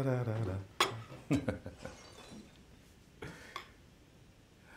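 A voice humming, low and falling in pitch, trails off at the start; then a few light clinks of tableware on a dining table come about a second in, again soon after, and once more past three seconds.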